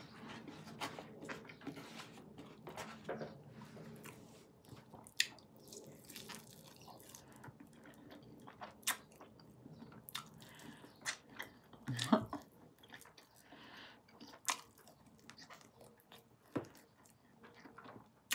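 A person biting and chewing chicken wings close to the microphone: faint chewing with many short, sharp mouth clicks and smacks scattered throughout, the loudest about twelve seconds in.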